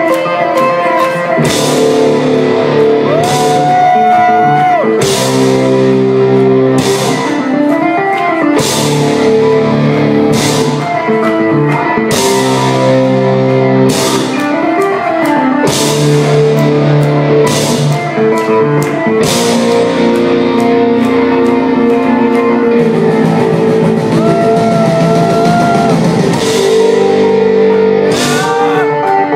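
Live heavy rock band playing loudly: electric guitars over a drum kit, with cymbal crashes every second or two and some sliding, held notes.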